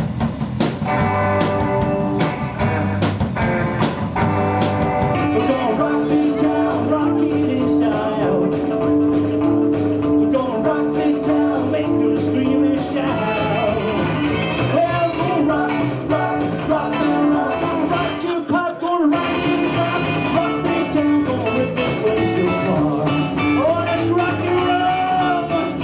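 Rock music with guitar and singing, with a short break about two-thirds of the way through.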